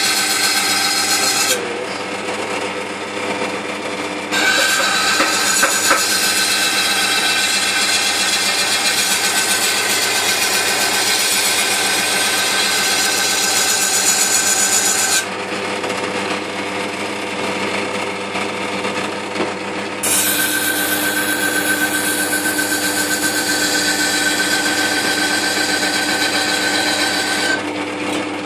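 A Wüsthof chef knife's steel bolster being ground down on a water-fed horizontal grinding wheel, with a steady scraping hiss of steel on wet abrasive. The grinding comes in three long passes and eases off twice, briefly near the start and again about halfway, while the grinder's motor whine carries on underneath.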